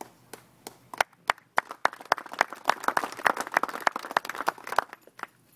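A small group clapping: a few scattered claps at first, thickening into a dense patter of many hands, then dying away shortly before the end.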